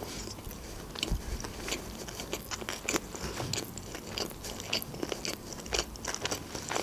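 A person chewing a mouthful of sushi roll with the mouth closed: many small, irregular wet clicks.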